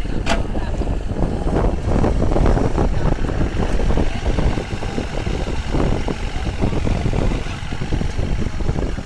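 Diesel engine of a Kobelco SK30-8 mini crawler excavator running with a steady, loud rumble, with a brief sharp click just after the start.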